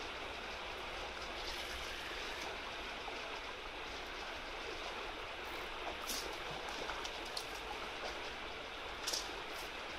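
Steady rush of a shallow, fast-flowing river running over a riffle. A couple of short clicks sound about six and nine seconds in.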